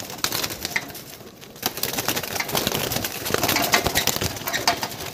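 Domestic pigeons in a wire-mesh loft cooing, with fluttering wing flaps and clicks and rattles as a young pigeon is caught by hand. The sound grows louder a little under two seconds in.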